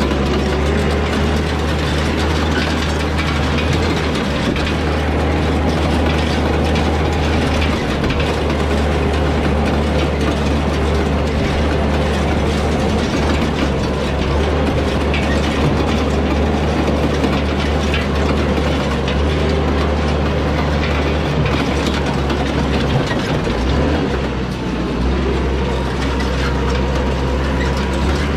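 Compact Yanmar tractor's engine running steadily under load while towing an antique hay rake, with the rake's wheels, reel and gearing clattering and ticking.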